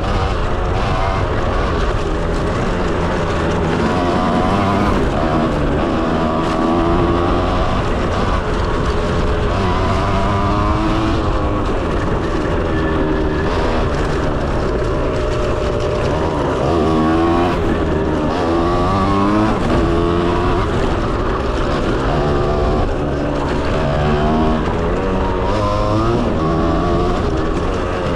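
Kawasaki KX125 two-stroke single-cylinder engine being ridden hard, its pitch rising and falling over and over as the throttle is opened and closed.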